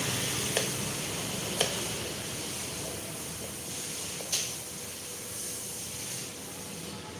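Kitchen knife slicing a gourd into rounds on a wooden chopping board: three sharp taps of the blade on the board, the first two a second apart and the third about three seconds later, over a steady hiss.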